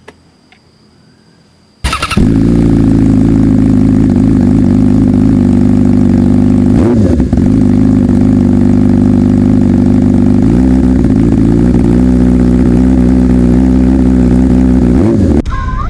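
Yamaha R6's 600 cc inline-four engine with an SC Project S1 full exhaust system starting about two seconds in and idling loudly. There is one quick rev about seven seconds in, and the engine is switched off and cuts out suddenly near the end.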